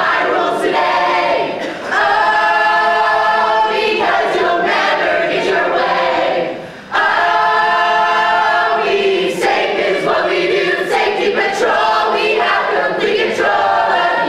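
A group of voices singing together, breaking off briefly about two and seven seconds in.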